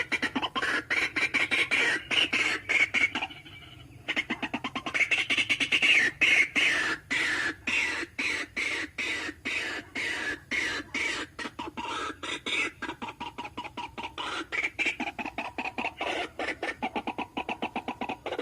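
White-breasted waterhens (ruak-ruak) calling: a fast run of harsh, repeated notes at about five a second, with a short break about three and a half seconds in. This is a lure recording of their call, played to draw the birds in.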